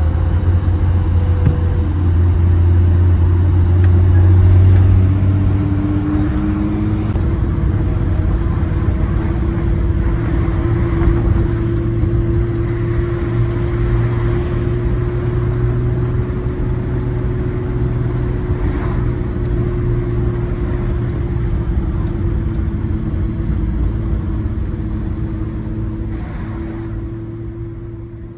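A 1950 Hudson Commodore driving along with its engine and road noise as a steady drone, fading out near the end.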